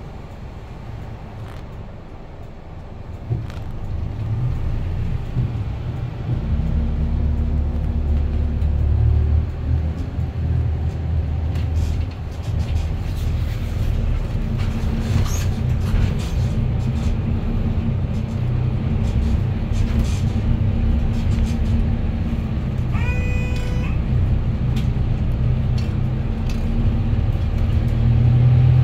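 City bus engine and road noise heard from inside the bus: a steady low rumble that grows louder a few seconds in as the bus gets going, then holds. About three-quarters of the way through there is a brief tonal beep.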